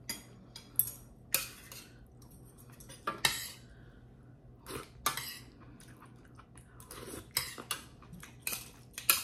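Metal serving utensils clinking and scraping against a stainless steel sauté pan while pasta is lifted out into a bowl: about a dozen sharp clinks at irregular intervals.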